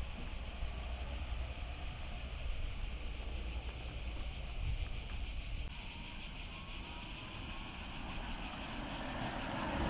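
Cicadas buzzing steadily in the pine trees, a high shrill drone over a low rumble. Near the end a small vehicle comes closer and its noise swells.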